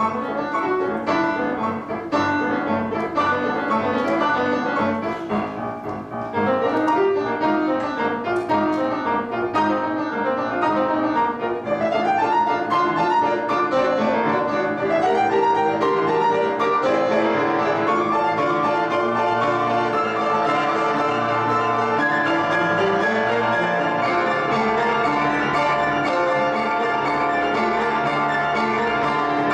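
Solo grand piano played in fast runs of notes that climb and fall, quieter for a moment about five seconds in and then played fuller and louder.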